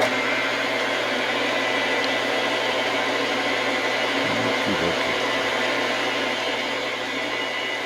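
Metal lathe switched on abruptly and running steadily, a loud motor and gearing whir with a steady low hum.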